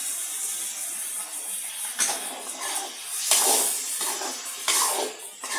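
Prawns and chopped tomatoes sizzling in oil in a metal kadai, a steady hiss, with three louder swishing strokes as the mix is stirred, about two, three and a half and five seconds in.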